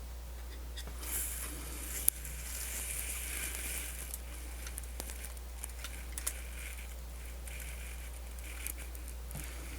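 Small clicks and scratchy scraping of tiny parts being handled while a spring is fitted back into a Sony MZ-N420D MiniDisc Walkman's mechanism, with one sharp click about two seconds in, over a steady low hum.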